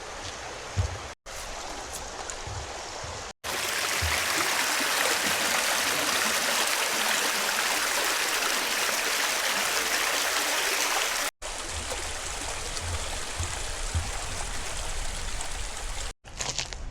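Running water of a forest stream, a steady rushing that is loudest for several seconds in the middle. The sound is cut in a few places with abrupt brief dropouts, and a few soft low thuds come in the quieter stretches.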